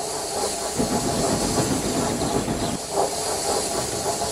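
Steam train sounds: a steady hiss of steam over the rumble of a train running on rails.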